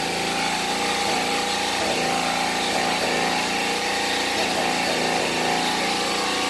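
A small engine or motor running steadily, a continuous droning hum under a hiss.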